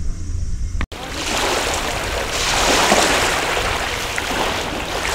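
Small waves washing onto a pebble shore: a rushing wash that begins suddenly about a second in, swells near the middle and eases off. Before it there is a low steady hum.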